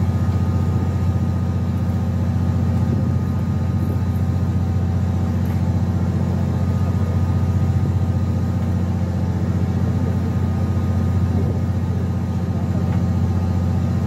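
Steady low hum of a fishing boat's engine running, with several fixed tones held in it and no change in level.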